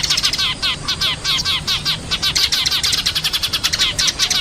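Eurasian tree sparrows chirping rapidly and without a break, several short calls a second overlapping one another.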